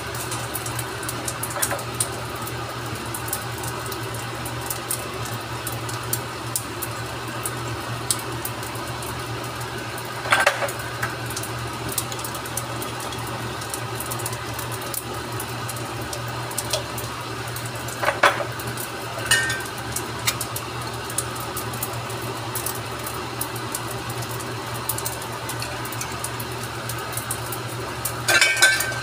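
Home cooking at the stove: a steady low hum runs under a few sharp clinks of utensils and containers against the frying pan, about ten seconds in, twice near the middle, and again near the end.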